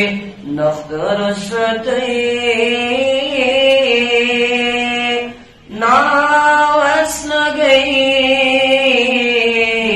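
A single voice singing a Kashmiri naat in long, held, wavering notes with no instruments. The voice breaks off briefly about half a second in and again about five and a half seconds in.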